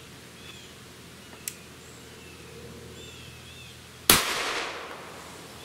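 A single shot from a Ruger SR9C compact 9mm pistol firing a handloaded round, about four seconds in: one sharp report that dies away over about a second.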